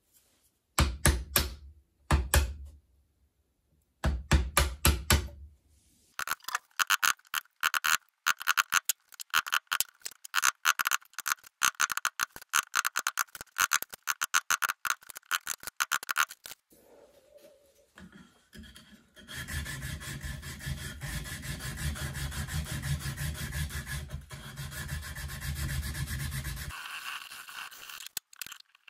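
Chisel work in walnut. It opens with two groups of sharp knocks, like mallet strikes on the chisel, followed by about ten seconds of rapid scraping strokes as waste is pared out of the dado. After that comes a steady rubbing on the wood for about seven seconds.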